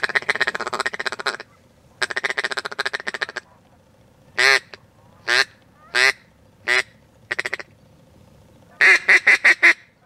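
Duck call blown close by: two rapid chattering runs, then five single quacks about a second apart, and a quick run of about five quacks near the end.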